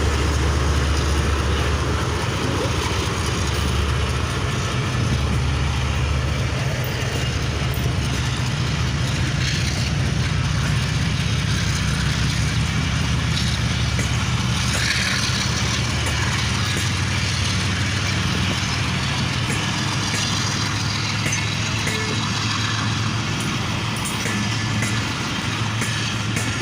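Diesel locomotive engine idling, a steady low hum.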